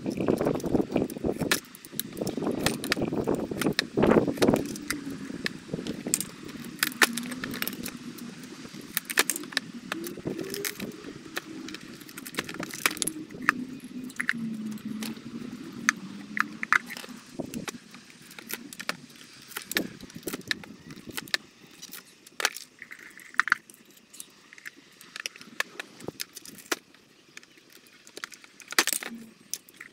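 Wooden sticks being snipped with long-handled cutters and handled on a workbench: a scatter of sharp cracks, snaps and light clattering, busiest in the first few seconds. A low wavering hum runs underneath.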